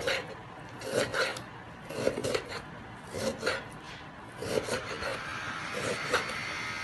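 Chef's knife slicing through raw beef and striking a wooden cutting board as the meat is diced into cubes, the cuts coming in quick pairs about once a second.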